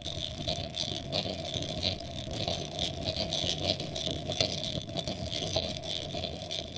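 Mechanical sound effect of turning gears: a continuous clicking, rattling clatter with steady high tones running under it, cut off abruptly at the very end.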